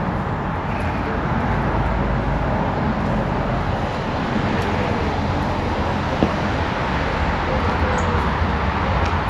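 Steady road traffic noise, the even rumble of cars passing on a town street, with a single sharp click about six seconds in.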